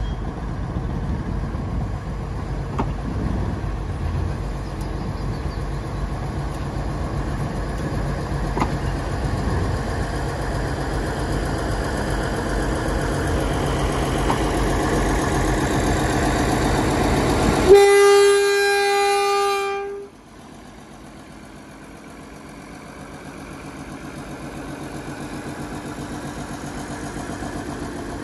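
Small diesel shunting locomotive's engine running as it hauls a line of unpowered steam locomotives, growing louder as it approaches. About 18 seconds in, a single steady locomotive horn blast lasting about two seconds, after which a quieter diesel engine runs on, slowly getting louder.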